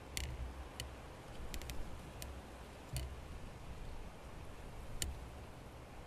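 Scattered sharp clicks at irregular intervals, about eight in all, with a quick run of three about a second and a half in, over a faint low rumble.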